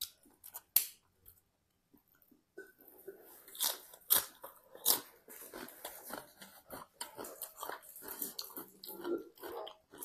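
A person chewing and crunching a mouthful of spicy seafood papaya salad, picked up close by a clip-on microphone on the shirt. A few sharp clicks in the first second, then from about three seconds in a continuous, irregular run of chewing and crunching.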